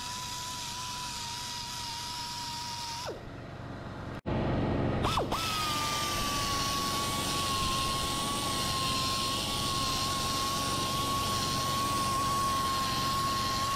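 Central Pneumatic air sander whining at a steady pitch as it sands the wood. About three seconds in the whine drops away as it is let off, then about a second later it starts again with louder air hiss and climbs back to a slightly higher steady whine.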